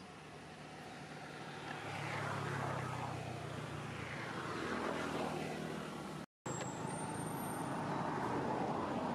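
Road traffic going past: a motor vehicle engine hum with two sweeping passes, then steady traffic noise after a brief total drop-out about six seconds in.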